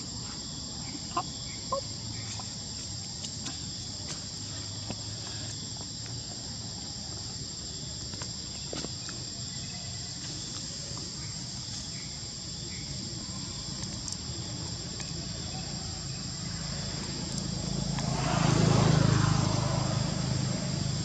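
Steady, high-pitched drone of an insect chorus, with two short sharp chirps about a second in. Near the end, a passing engine swells up and starts to fade.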